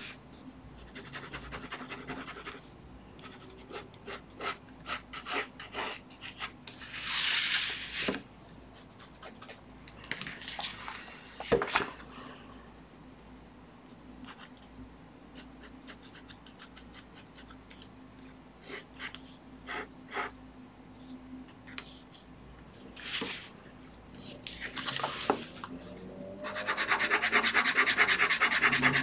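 Ink pen nib scratching across paper in short hatching strokes. The strokes come in scattered bursts, with a fast run of rapid strokes near the end.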